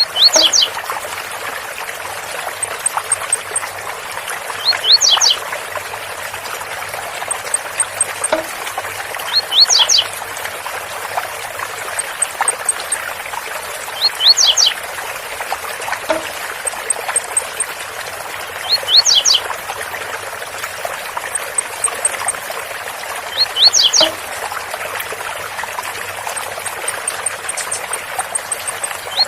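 Blue-black grassquit (tiziu) singing the 'Zel Zel' song, a short phrase of quick high notes repeated at even intervals about every five seconds, over the steady rush of a waterfall.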